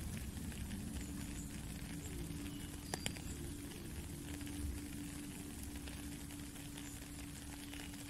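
Steady rain pattering on a puddle and wet ground, with many small drop clicks and one sharper tap about three seconds in. A faint, steady low tone is held underneath from about a second in.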